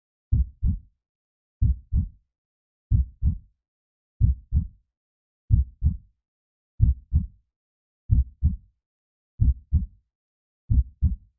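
Heartbeat sound effect: low double thumps, lub-dub, in a slow, even rhythm of about one beat every 1.3 seconds, with silence between beats.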